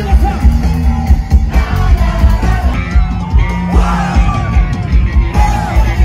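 Live band music played loud through a concert PA system, with a singer over a strong, steady bass beat and a crowd yelling along.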